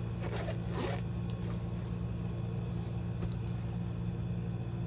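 Steady low hum of a room air conditioner running, with brief rustling from handling an item in the first second.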